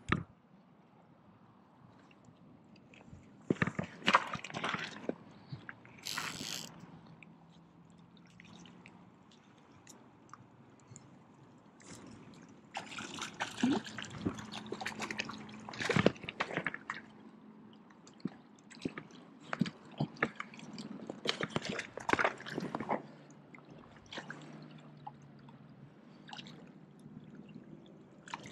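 A hooked trout splashing at the water's surface in irregular bursts while being played on a fly rod, with a brief ratcheting of the click-pawl fly reel about six seconds in.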